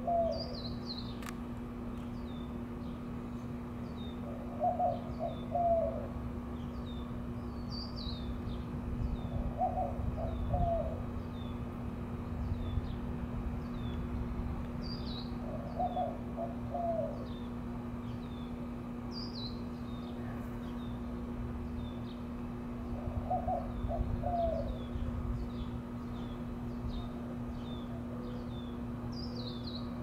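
White-winged doves cooing in courtship: a short phrase of a few low coo notes repeated every five to seven seconds. A small bird chirps high and often in the background, over a steady low hum.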